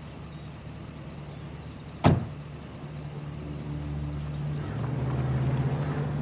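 A car door slams shut about two seconds in. A low, steady hum then sets in and swells.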